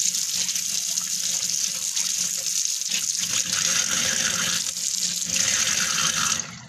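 Kitchen tap running steadily while hands are washed under it; the water is shut off abruptly near the end.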